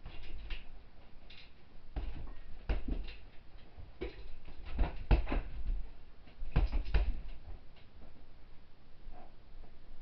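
Punches from hand-wrapped fists thudding on a hanging heavy bag. They come in quick combinations of two or three hits with short pauses between.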